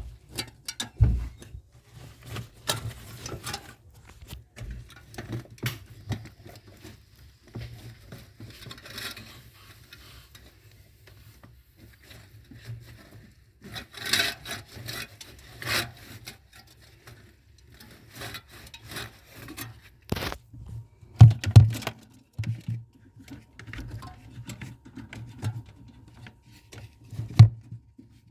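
Hands-on repair work: scattered clicks, knocks and scraping of tools and metal parts being handled, with a few louder knocks near the end, over a faint low steady hum.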